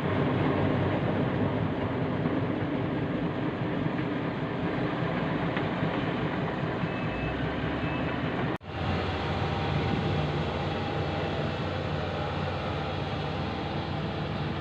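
Heavy diesel earthmoving machinery, bulldozer and road compactor, running steadily under work. The sound cuts out for an instant about eight and a half seconds in, then resumes.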